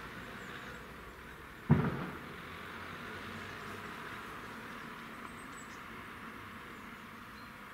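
Steady chirring of insects in the grass, with one sudden low thump about two seconds in.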